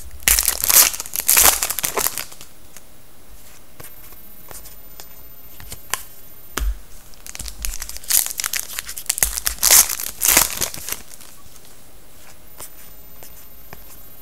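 Wrapper of a 2011-12 Panini Contenders hockey card pack being torn open and crinkled by hand, in two loud spells: one at the start and one about eight seconds in. Lighter clicks and rustles of the cards being handled come between them.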